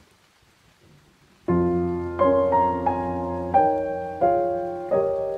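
A solo piano piece begins about a second and a half in after a very faint lead-in. Its notes and chords are struck at an unhurried pace, each one dying away before the next.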